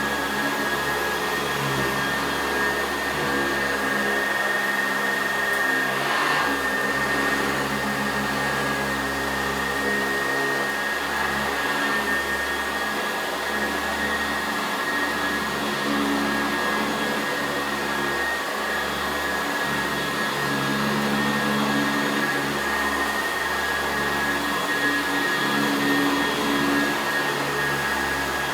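Sanitaire wide-track commercial upright vacuum running steadily while vacuuming the floor: a constant motor whine over a steady hum.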